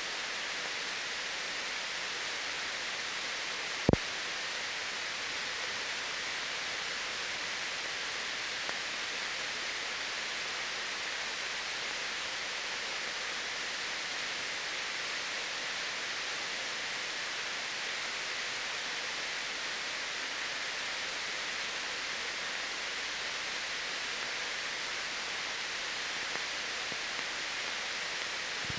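Steady hiss of an old 1950s film soundtrack, broken by one sharp click about four seconds in.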